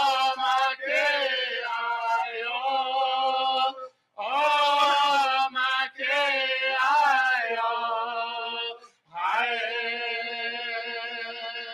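Voices singing a Native American drum-group song in long held phrases, breaking off briefly about every four to five seconds.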